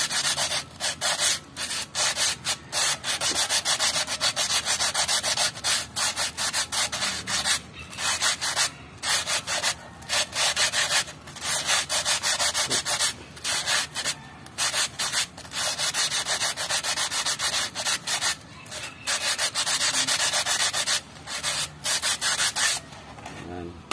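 Sandpaper on a rod being worked by hand inside the bore of an Isuzu Elf drum-brake wheel cylinder, a quick, uneven run of scraping sanding strokes that stops about a second before the end. The bore is being smoothed so the new rubber cups seal and last.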